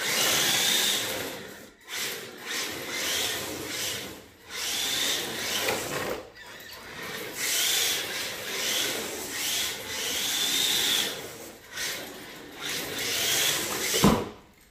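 HSP Flying Fish 1/10 RC drift car driving in repeated bursts of throttle: the brushed motor's whine rises and falls in pitch with each burst, and the hard plastic tyres scrub and slide on concrete. A sharp knock comes near the end.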